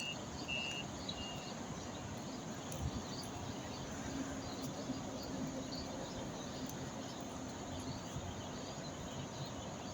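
Outdoor rural background, a steady even hiss. Three short, high chirps come in the first second and a half.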